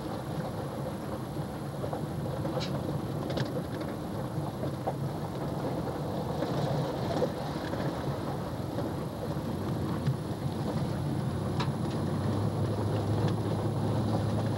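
Truck running along a gravel road, heard from inside the cab: a steady rumble of engine and tyres, with a few sharp ticks. A steadier low engine hum comes in about twelve seconds in.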